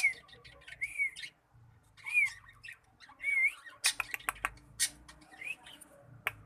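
Cockatiel giving a series of short, rising-and-falling chirping calls, about five in all, with a burst of sharp clicks a little past the middle and one more click near the end.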